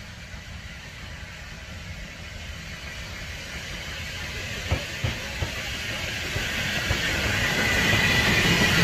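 Saddle tank steam locomotive hauling coaches, approaching and drawing level, growing steadily louder: a low rumble from the train, a few sharp knocks about halfway, and a hiss of steam building near the end as the engine comes alongside.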